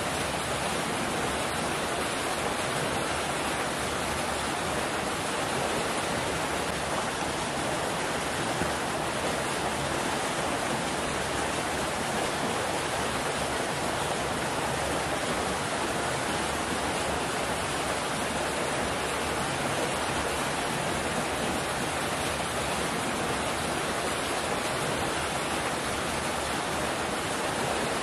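Water pouring from an inlet pipe into a concrete pool, a steady splashing rush.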